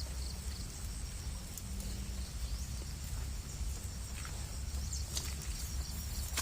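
Insects chirring steadily and high-pitched in the field, over a constant low rumble, with a few faint short chirps.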